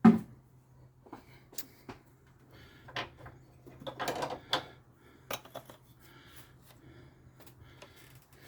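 Plastic oil bottles and a funnel being handled: a sharp knock at the start, then scattered clicks and rattles, with a denser burst of scraping and rustling about four seconds in.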